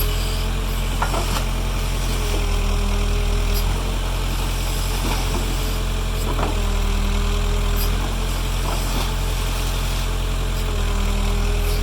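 Backhoe's diesel engine running steadily with a low rumble. A fainter tone swells and fades every few seconds, and there are a few light knocks.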